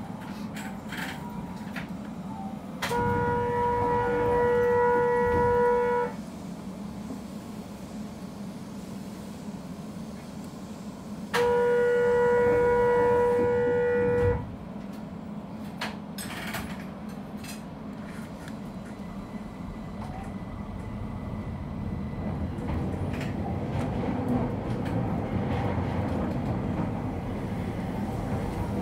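Horn of a Keihan 800 series train sounding two long steady blasts of about three seconds each, some five seconds apart, over the train's running noise, which grows louder near the end.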